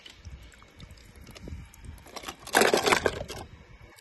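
Water sloshing as a hand rummages through plastic toy cars in shallow water, then a loud splash lasting just under a second about two and a half seconds in.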